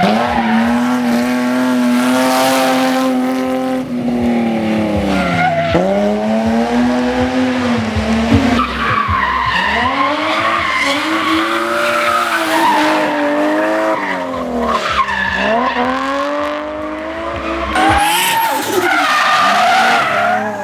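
Race car engine at hard throttle, its pitch climbing and dropping again and again as the car accelerates, shifts gear and lifts for corners.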